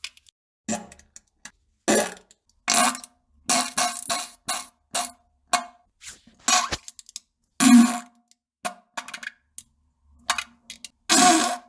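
A rapid string of short fart sounds, about fifteen, each cut off by a brief dead-silent gap; the loudest come near the middle and just before the end.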